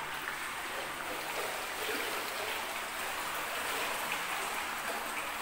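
Steady water noise of an indoor swimming pool: gentle lapping and trickling of the pool water, with no distinct splashes.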